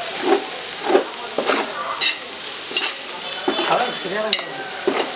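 Chicken biryani masala sizzling in a large aluminium pot as a metal ladle stirs and scrapes through it in repeated strokes, with one sharp clink of the ladle against the pot a little past four seconds in.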